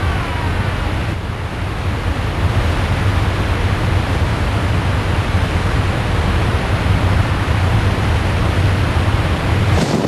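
Niagara Falls: a huge volume of water pouring over the brink, a loud steady rush with a deep low rumble beneath it.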